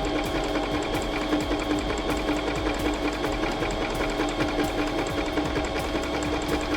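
Pfaff Element 1090s domestic sewing machine running steadily, its needle stitching with rapid, even ticks over a constant motor hum.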